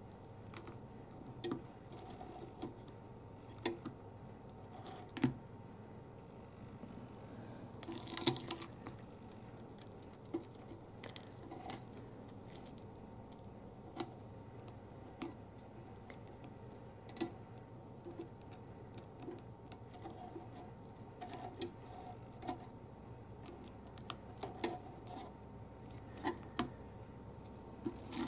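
A blade scraping and clicking irregularly along the edge of a cracked iPhone 7 LCD, cutting away leftover glue, paint and plastic, with a louder scratch about eight seconds in.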